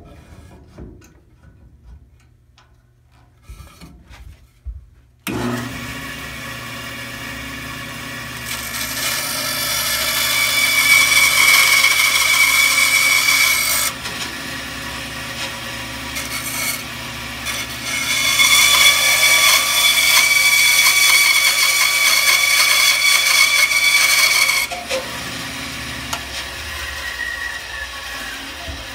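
Bandsaw switched on about five seconds in, its motor and blade running with a steady hum, then cutting through a wooden board in two long passes, each louder and rougher than the free-running saw. After the second cut the saw runs on unloaded and fades near the end.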